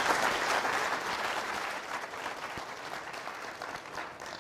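Lecture-hall audience applauding, loudest at the start and dying away over the next few seconds.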